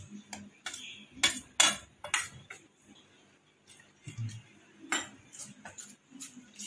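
Steel spoon clinking and scraping against a glass bowl while stirring thick semolina idli batter, in irregular knocks that are loudest between about one and two seconds in.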